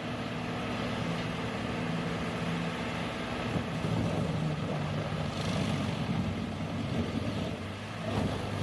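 Engine of a heavy working machine running steadily with a low hum, along with shifting mechanical noise.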